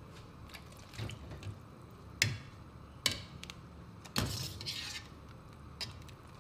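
Wire strainer lifting freshly boiled noodles out of a stainless steel pot: a few sharp clinks of the strainer against the pot, and water dripping and splashing back in, longest about four seconds in.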